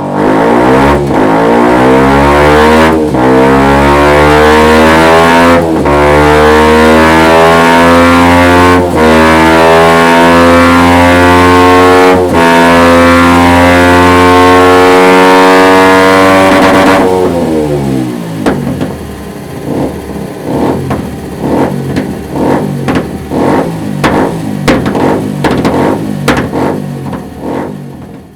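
Kawasaki Ninja 125's single-cylinder four-stroke engine through a Dominator aftermarket exhaust, revving hard with its pitch climbing and short breaks every two to three seconds. About seventeen seconds in the throttle closes and the exhaust pops and crackles on the overrun as the revs fall.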